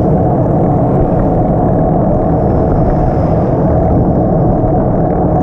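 Loud, steady wind buffeting the microphone while riding, a dense low rumble with no clear engine tone.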